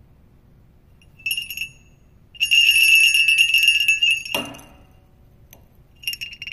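Hand-forged jingle bell being shaken, jingling in three bursts: a short one about a second in, a long shake of about two seconds, and a brief one near the end. The long shake stops with a dull knock.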